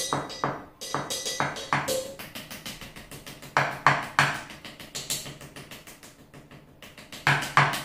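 Drum solo played with drumsticks on upturned plastic buckets, with a floor cymbal and a steel bin: quick strokes with a dull thud in each, a cymbal ringing off in the first second, and loud accented hits about three and a half seconds in and again near the end.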